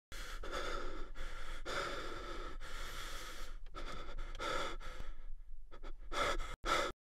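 A person breathing heavily, a run of long, noisy breaths in and out with short pauses between them. The breathing stops abruptly near the end.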